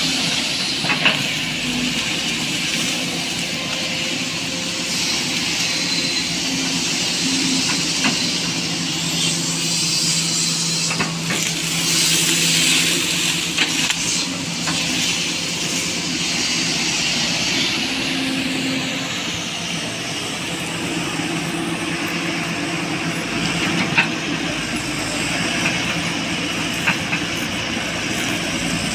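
SANY SY215C hydraulic excavator's diesel engine running steadily under working load with a high hydraulic hiss, with a few sharp cracks and knocks as its bucket breaks up a felled oil palm trunk and fronds.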